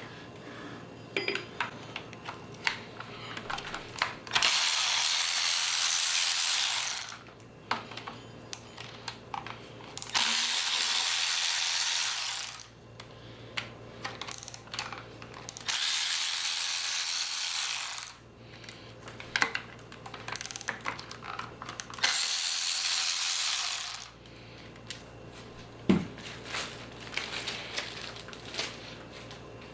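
Power ratchet run in four bursts of about two seconds each, backing out the water pump bolts on a KA24DE engine, with clicks and clinks of tools and bolts between the bursts.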